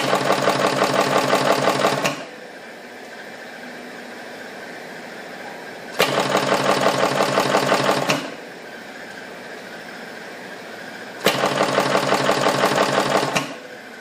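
EW-21D flexible flat cable crimping machine running three crimp cycles. Each cycle is a sharp click followed by about two seconds of rapid, even mechanical chattering, about six strokes a second, that stops cleanly. A low steady hum runs between the cycles.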